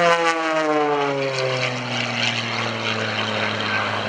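MXS aerobatic monoplane's piston engine and propeller passing by: the pitch drops over the first second or so as it goes past, then holds steady at a lower note as it climbs away.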